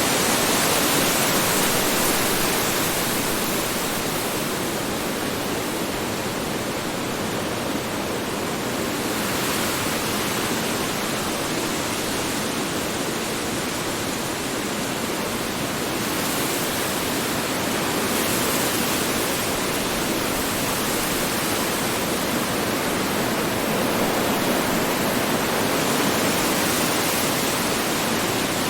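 Strong wind blowing steadily as a dense rushing noise that swells and eases slowly every few seconds.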